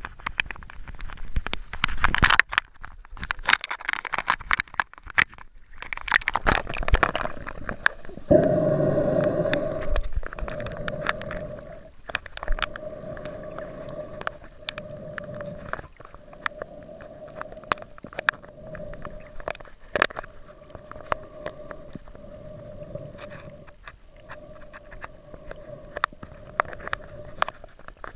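Water splashing and sloshing against an action camera's waterproof housing as a snorkeler films at the surface. About eight seconds in the camera goes under: the sound turns muffled, with a steady hum and scattered clicks.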